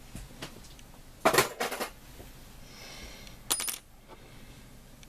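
Short cut pieces of thin brass rod clinking as they are handled and set down on a cutting mat. There are two quick clusters of light metallic clicks, about a second in and again near the middle, the second ending in a brief high ring.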